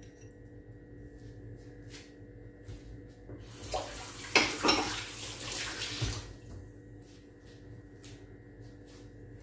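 Kitchen tap running into a sink for about three seconds in the middle, with a couple of knocks from the tap or sink.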